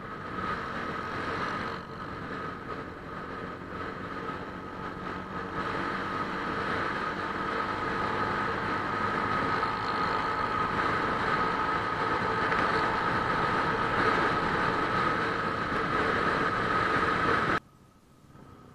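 Motorcycle riding at steady speed in traffic, engine and wind noise on the bike-mounted camera's microphone with a steady whine. Near the end it cuts off suddenly to a much quieter low hum.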